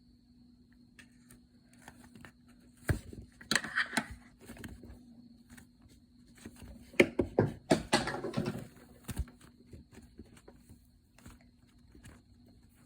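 Slime being squished and pressed by hand, giving sticky clicks and crackling pops in two bursts: about three seconds in and again from about seven to nine seconds. A faint steady hum runs beneath.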